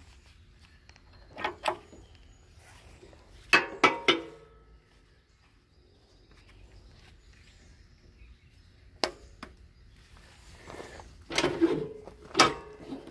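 Sharp metallic clicks and clacks of hydraulic quick couplers and hose fittings being handled on a tractor's front loader. They come in scattered clusters: a pair early, the loudest run of three about four seconds in, a single click near the middle, and a busier cluster near the end.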